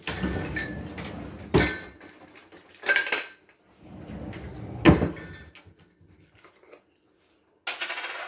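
Kitchen dishes and utensils being handled, with a sharp knock about a second and a half in, a ringing clink about three seconds in and another knock about five seconds in. A short rustle comes near the end.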